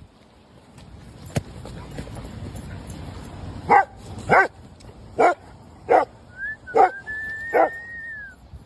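A dog barking, six loud barks about two-thirds of a second apart starting about halfway in. A high, drawn-out whine runs over the last barks.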